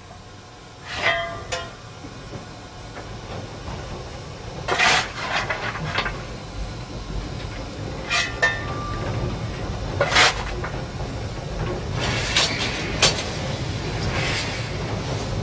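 Inside the cab of steam tank locomotive C11 171: the fireman's coal shovel scraping and clanging at the firebox opening, about nine sharp strokes with a short metallic ring, spaced a second or two apart. Under them, a low rumble of the locomotive under way grows from about four seconds in.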